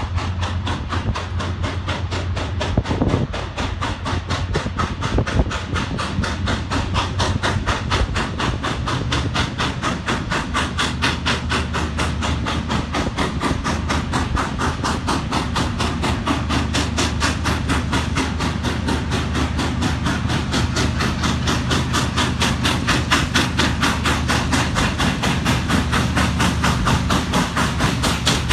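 Norfolk & Western 611, a 4-8-4 steam locomotive, working hard, its exhaust beating in a rapid, even rhythm that grows louder as it approaches. Under it runs the steady low drone of the diesel locomotives pulling the grain train alongside.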